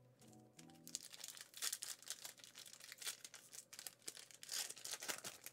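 Foil trading-card booster pack wrapper crinkling and being torn open: a dense run of crackles starting about a second in.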